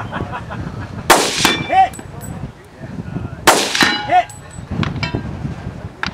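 Two rifle shots about two and a half seconds apart. Each is followed under a second later by the clang and ring of a distant steel target being hit. Fainter shots follow near the end.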